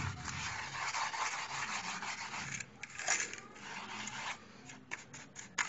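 Butter-toasted biscuit crumbs being pressed and smoothed into a fluted metal tart tin with the base of a glass and a spoon: a gritty rubbing and scraping. It is continuous for the first couple of seconds, then breaks into short strokes and light taps.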